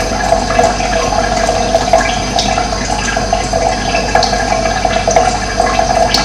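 Steady rush of running water, with a few brief high bird chirps over it.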